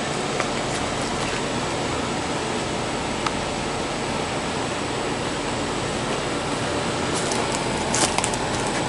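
1983 Gibson SlumberMaster window air conditioner running, heard from its outdoor side: a steady rush of air from its fan, with the compressor nice and quiet.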